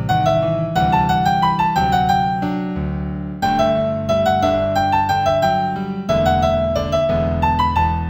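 Piano playing a gentle new-age piece in G major: a melody of short rising runs of notes over held low chords.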